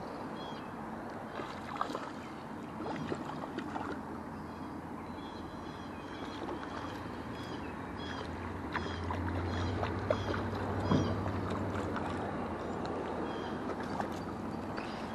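River current flowing steadily, with light splashing from a hooked brook trout as it is reeled in and lifted toward the bank.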